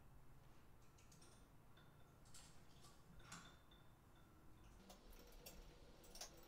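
Near silence with faint, scattered light clicks and taps as a piston is wiggled and its rings pressed with the fingers into the bevelled bottom of a Honda CBX cylinder. The clicks come a little thicker in the last second or so.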